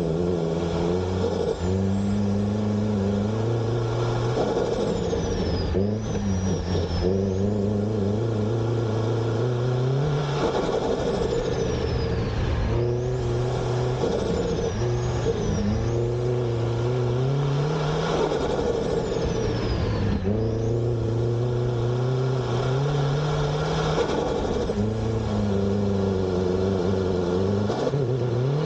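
Turbocharged Honda Civic EG engine driven hard: the revs climb and fall again every few seconds as the driver accelerates, shifts and lifts. Each lift brings a high turbo whistle dropping in pitch, with turbo flutter as the throttle closes.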